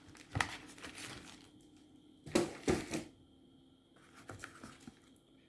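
Handling noise as fireworks are lifted out of a selection box and set down: a few short clicks and knocks, the loudest cluster about two and a half seconds in.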